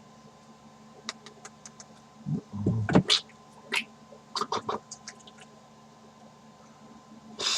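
Scattered small clicks and taps at an irregular pace, with a sharper, louder click about three seconds in and a short hummed 'mm' just before it.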